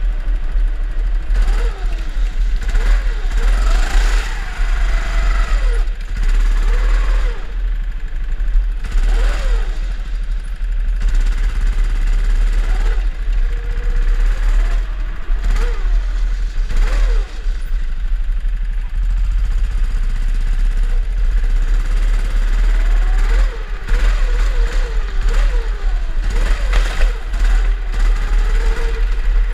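Drift kart motors revving up and down again and again, the pitch rising and falling every second or two, over a constant deep rumble.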